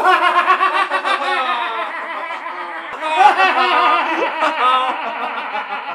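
Two men laughing loudly together, overlapping laughs that run on without a break.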